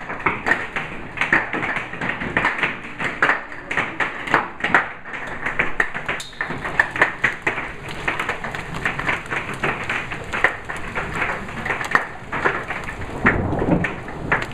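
Hailstones pelting a wooden deck and yard in a thunderstorm: a dense, irregular clatter of sharp impacts over a steady wash of falling rain and ice.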